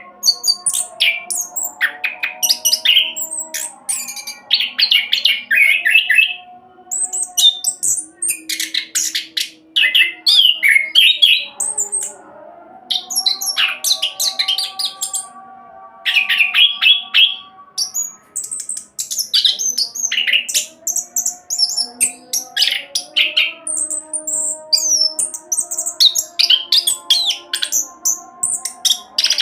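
Orange-headed thrush singing a fast rolling song: rapid runs of high, varied chirps and whistles in phrases of a few seconds, broken by short pauses.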